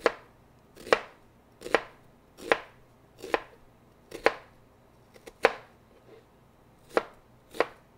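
Chef's knife dicing half an onion on a cutting board: about ten separate cuts, roughly one a second, each ending in a sharp knock of the blade on the board.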